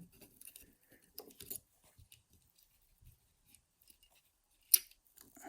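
Light clicks and scrapes of the small flat metal levers of a dismantled 5-lever mortice lock being handled and lifted out, with one sharp click late on.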